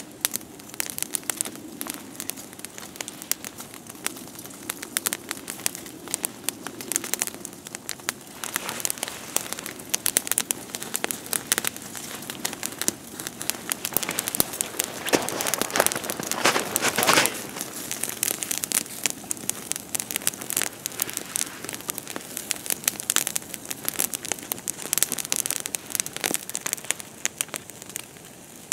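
Wood campfire crackling, with a dense run of sharp snaps and pops, loudest a little past halfway.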